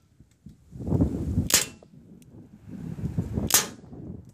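Crosman 1077 CO2 pellet rifle firing two shots about two seconds apart, each a sharp crack, with a low rumbling noise between them.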